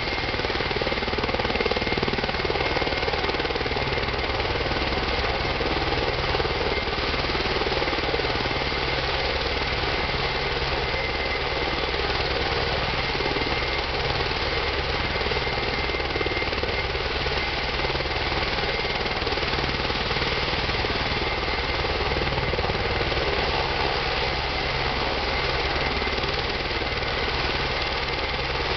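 Helicopter running on the ground at idle: a steady turbine whine over the fast, even beat of the rotor blades.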